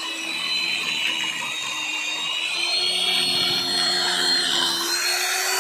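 A steady motor whine, its pitch creeping slightly upward about halfway through.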